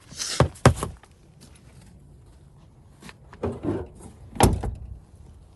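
Handling noises on the wrecked SUV: a short rustle with two sharp clicks, a softer scuff a few seconds later, then one loud knock near the end.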